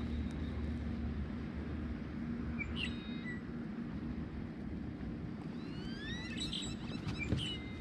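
Birds calling: a short call about three seconds in, then a string of rising whistled notes from about six seconds, over a faint steady low hum.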